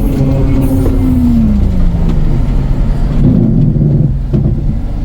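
The "Veter" all-terrain vehicle's engine running under way. Its pitch falls over the first two seconds, rises briefly a little past three seconds, then settles to a steady drone.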